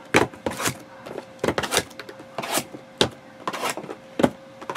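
Trading-card packaging being torn open and handled: a string of short, sharp rustles and rips of wrapper and cardboard, with a faint steady hum underneath.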